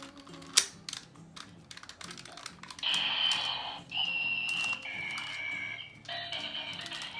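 Hard plastic toy parts clicking and snapping as a Power Rangers Dino Charge zord toy is transformed, with one sharp snap near the start. From about three seconds in, a much louder electronic sound with steady high tones that change pitch comes and goes, breaking off twice.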